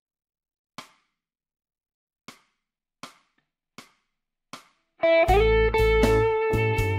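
A count-in of five soft clicks about 0.75 s apart, at 80 beats a minute. About five seconds in, a blues backing track with drums and bass comes in and an electric guitar (Fender Telecaster) starts the minor-pentatonic blues solo, its opening notes held and sustained.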